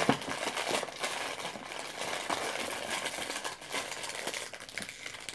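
Blind-bag toy packets and small boxes rustling and crinkling as a hand rummages through a plastic bin, with many small clicks and crackles throughout.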